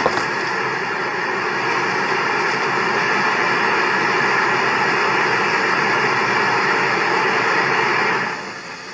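Steady, loud rushing noise heard from inside a stopped car, without speech; it cuts off suddenly about eight seconds in.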